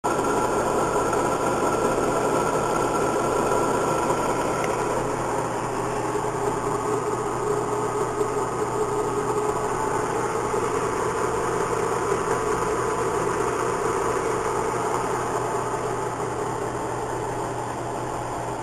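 CNC milling machine running a carving program, its spindle and cutter making a steady mechanical hum with several held tones.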